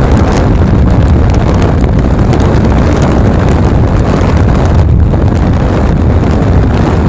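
Heavy wind rushing and buffeting on a phone's microphone held at the side window of a moving pickup, mixed with road noise at driving speed. It is loud and steady, and it cuts off suddenly just after the end.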